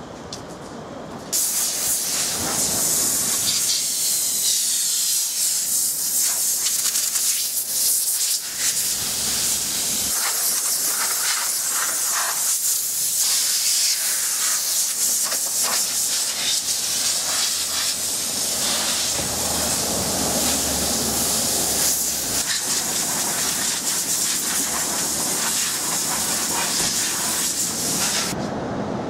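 Compressed-air blow gun on a red air hose, hissing loudly and steadily as it blows water off a freshly washed car's body and gaps. It starts suddenly about a second in and cuts off near the end.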